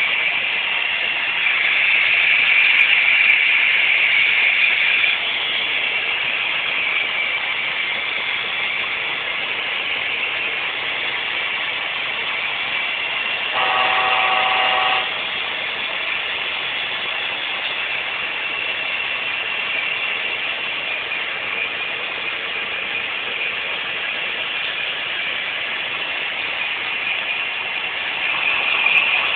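Model train running around a layout: a steady mechanical whir and rattle of the locomotive motor and the cars' wheels on the track, louder for a few seconds early and again near the end. Around the middle, a short pitched tone sounds for about a second and a half.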